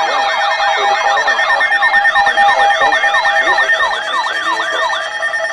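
Electronic siren in a fast yelp, its pitch sweeping down and back up about three times a second over steady held tones; the yelp stops about five seconds in.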